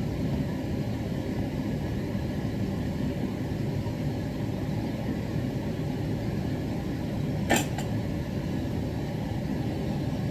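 A steady low mechanical hum in a kitchen, with a wooden spatula knocking twice on the rim of a metal wok about seven and a half seconds in.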